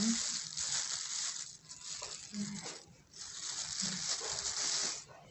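Thin plastic bag crinkling and rustling as bunches of fresh coriander are handled in it, in irregular spells that die away near the end.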